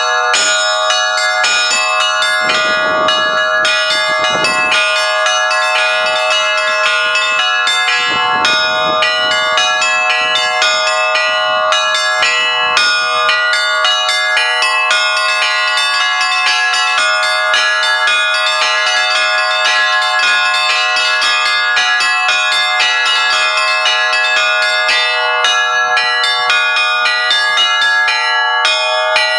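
Russian church bells rung by hand: rapid, continuous strikes on the small bells over the sustained ringing of the larger bells.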